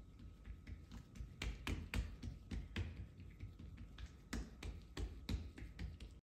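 Hands patting and pressing oiled msemen dough thin against a countertop: a run of irregular soft slaps and taps, a few a second, that cuts off abruptly at the very end.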